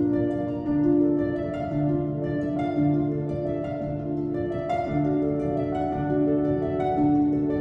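Background music: plucked harp-like notes over sustained lower tones, in a slow, gentle melody.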